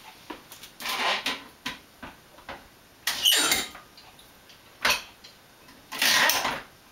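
Floor-standing wine corker being worked by its lever to drive a cork into a wine bottle: several short bursts of mechanical clatter and scraping, with a brief squeak about three seconds in and a sharp click just before five seconds.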